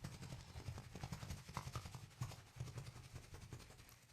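Faint, irregular scratchy rubbing of hands pressing and working over the back muscles, with soft low thuds.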